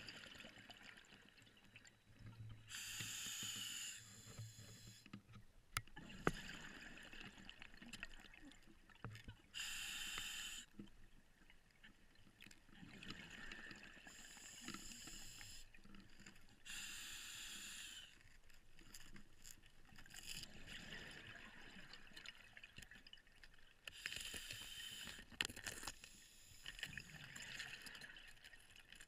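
Scuba diver's open-circuit regulator breathing underwater: a burst of exhaled bubbles every few seconds, with quieter inhalation hiss between. A few sharp clicks, the loudest two near 6 and 25 seconds in.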